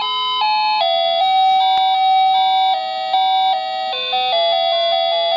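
Wireless remote-control doorbell chime playing one of its built-in electronic melodies: a tune of clean, synthetic notes stepping from pitch to pitch. There is a brief click just under two seconds in.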